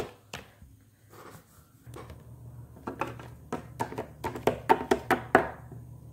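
Quick irregular taps and clicks of small plastic Littlest Pet Shop figurines being hopped across a hard surface by hand, coming thickest in the second half. A low steady hum starts about two seconds in.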